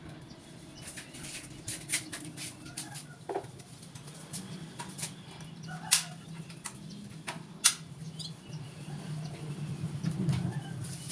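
Birds fluttering their wings, with scattered sharp clicks and knocks, two louder ones about six and seven and a half seconds in, over a steady low hum.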